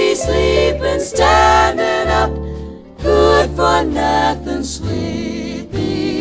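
Background music: a song with sung vocals over a steady bass line.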